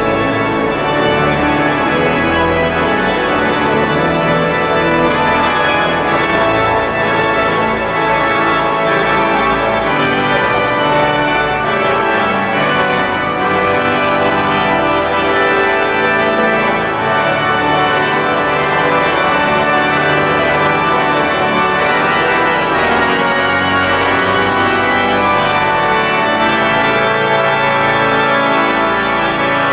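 Pipe organ playing loud, sustained full chords that change every few seconds.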